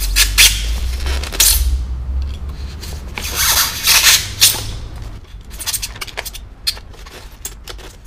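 A knife cutting through polystyrene foam in separate strokes: a few longer strokes in the first half, then many short, quick ones.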